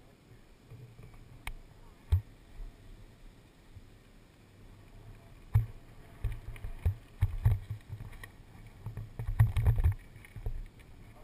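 Wind buffeting a helmet-mounted camera's microphone as a mountain bike rolls over a dirt trail, with a few sharp knocks in the first seconds. The low buffeting comes in thick, irregular gusts through the second half.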